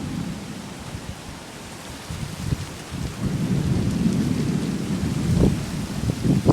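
Steady hiss of rain falling in a thunderstorm, with a low rumble of thunder that swells about halfway through and keeps rolling.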